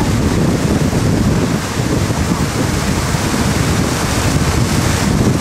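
Steady rushing and hissing of water spray thrown up by a barefoot water skier's feet planing across the water at speed, with wind buffeting the microphone.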